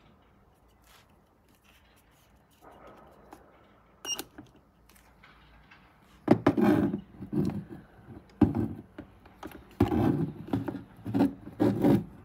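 A metal alligator clip clicks onto a battery terminal, then a short high beep and click about four seconds in as the power inverter switches on. After that come irregular thuds and rattles of the clips, cables and inverter case being handled.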